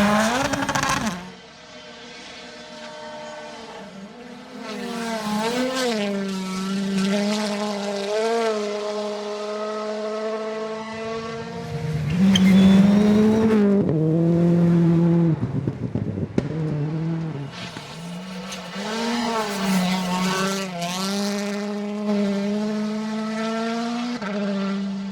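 Rally car engines running hard at high revs, the pitch holding, then dipping and climbing again with gear changes and lifts off the throttle. The sound changes abruptly several times, as one car's run gives way to another's.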